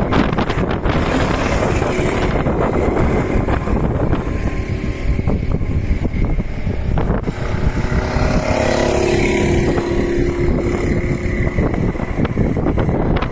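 Racing kart engines running as karts lap the circuit, with the engine note clearest about two-thirds of the way through, over wind rumbling on the microphone.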